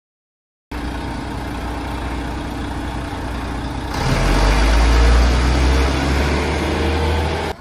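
Articulated diesel city bus pulling away from a stop: a low engine rumble swells about four seconds in over steady street traffic noise, then cuts off abruptly near the end.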